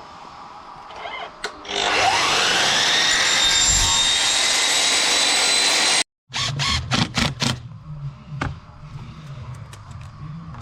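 Electric chop saw motor spinning up with a rising whine and running loudly for about four seconds before cutting off abruptly. A quick series of sharp knocks follows.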